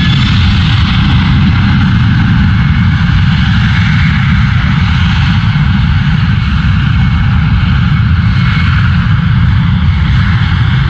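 Boeing 767 jet engines at takeoff power: a loud, steady roar with a deep rumble underneath.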